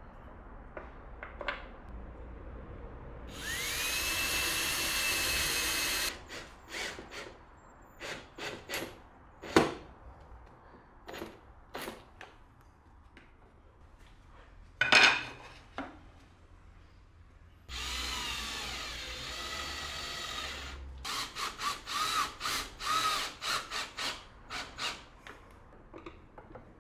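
Power drill/driver spinning up with a rising whine and running for a few seconds to drive screws into a wooden block, then running again and finishing in a string of short trigger bursts. Sharp knocks and clicks of parts being handled fall between the runs.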